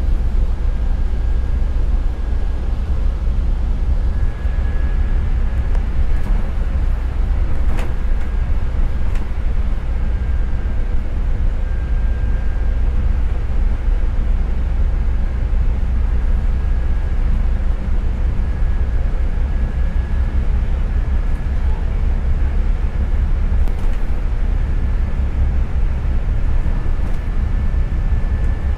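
Double-decker bus running, heard from inside the upper deck: a steady low engine and road rumble with a faint high whine that comes and goes. A single sharp click about eight seconds in.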